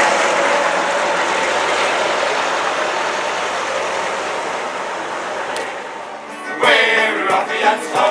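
Vintage London Transport single-deck bus's engine running as it pulls away, fading steadily as it draws off. About six and a half seconds in it cuts to a group of men singing a sea shanty with instruments.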